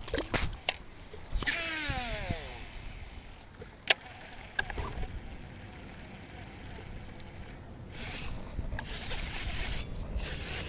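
Handling noises from a fishing rod and reel on a small boat over a steady hiss of wind and water, with a falling gliding sound a second or two in and one sharp click about four seconds in.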